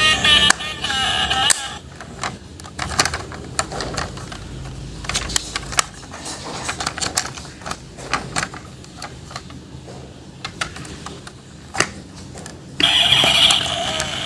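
Irregular light clicks and knocks of plastic toys being handled. A loud pitched sound with several tones plays for the first second and a half and starts again near the end.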